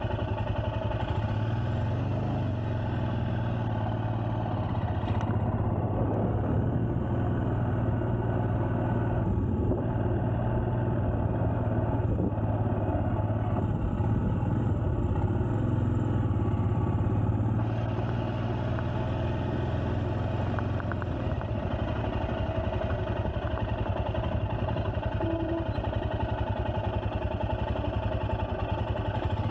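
Royal Enfield Scram 411's 411 cc single-cylinder engine running steadily at low revs.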